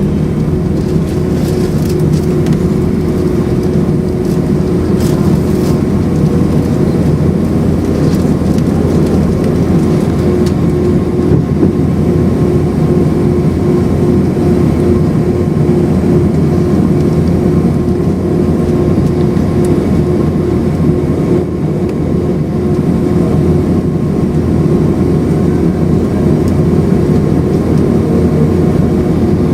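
Airbus A319's IAE V2500 turbofan engines running at low taxi power, heard inside the passenger cabin as a steady low rumble with a few steady hum tones.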